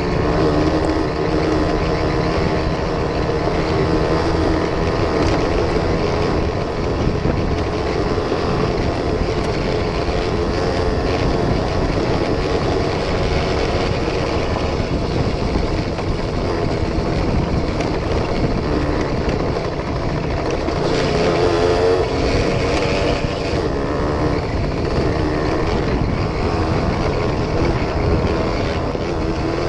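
1973 Suzuki RV75's small two-stroke single-cylinder engine running steadily under way, with the revs rising briefly about two-thirds of the way through.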